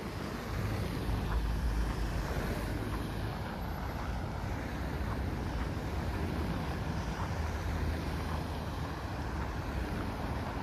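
Street traffic, a steady low rumble of passing vehicles that swells about half a second in.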